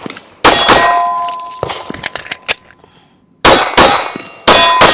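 PSA Dagger 9mm pistol firing during a timed drill: one shot about half a second in, a few quieter cracks, a pause of about a second, then a quick run of shots near the end. Several shots are followed by the ringing clang of a steel target being hit.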